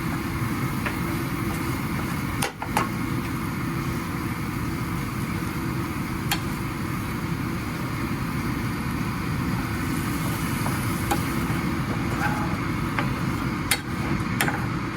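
Spices frying in a pot and being stirred, with a few sharp clinks of the spoon against the pot, a pair about two and a half seconds in, one near six seconds and a couple near the end, over a steady low kitchen rumble.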